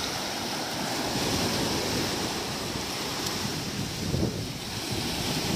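Surf washing onto a sandy beach in a steady wash of noise, with wind buffeting the microphone.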